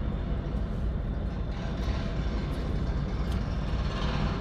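Steady low rumble of machinery from a nearby construction site, unbroken and even in level.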